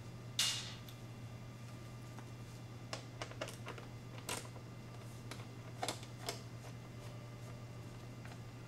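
Scattered light clicks and taps from gloved hands working the fasteners of a Yamaha R3's plastic side cover, with a short louder scuff about half a second in. A steady low hum runs underneath.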